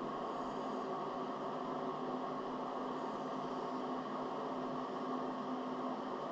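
Steady mechanical hum with an even hiss, like a running fan or motor, unchanging throughout.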